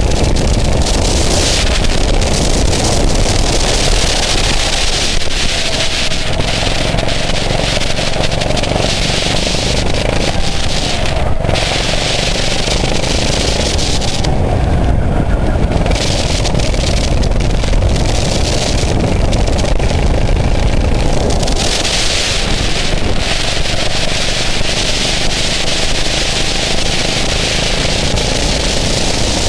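Go-kart engine running at racing speed, heard onboard with heavy wind noise on the microphone; the engine note rises and falls through the laps.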